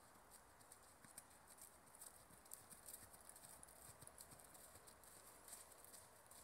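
Faint hoofbeats of a ridden horse trotting on a grass arena, heard as a quick, irregular run of soft clicks over a faint steady hiss.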